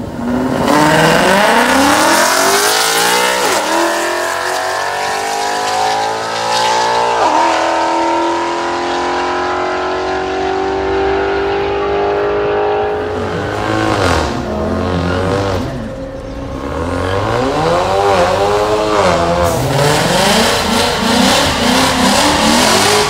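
Drag cars launching off the line at full throttle, the engine pitch rising through two upshifts about three and seven seconds in, then holding high as they run down the strip. In the second half an engine revs up and down repeatedly at the start line.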